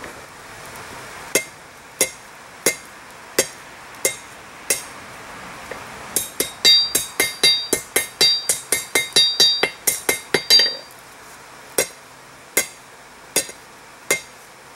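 Hammer blows on a hot steel rod lying on an anvil, as it is forged into a poker. Single strikes come about every two-thirds of a second, then a quicker run of ringing blows in the middle, then single strikes again.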